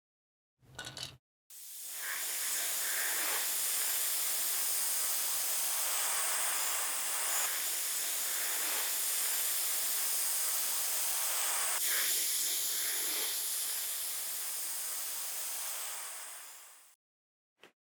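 A spray nozzle hissing steadily for about fifteen seconds, swelling in at the start and tapering off near the end. A brief short sound comes just before it.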